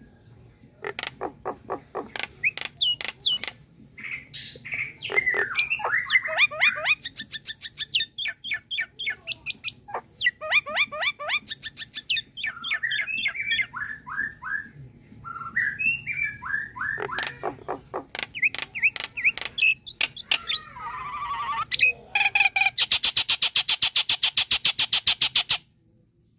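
Common myna singing: a varied string of clicks, gurgling whistles and chattering notes, ending in a long, fast, harsh rattle that cuts off abruptly shortly before the end.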